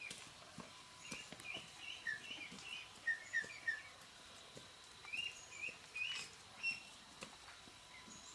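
Small birds chirping in quick, short calls, in two bursts of chirps, with scattered light knocks or taps in between.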